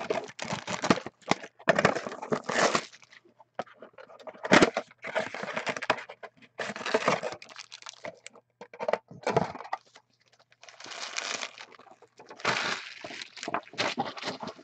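Foil-wrapped trading card packs crinkling and rustling in uneven bursts as they are pulled from a box and stacked by hand, with a sharper crackle about four and a half seconds in.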